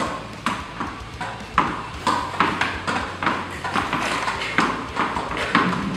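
Tennis ball volleyed against a wall in a fast rally: racket strings and wall strikes alternate as sharp pocks, about three or four a second.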